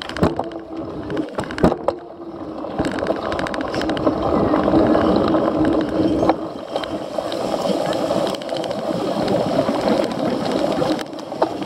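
Cyclocross bike ridden over a rough off-road course: continuous tyre and rattling noise with many sharp knocks and clatters from the bike.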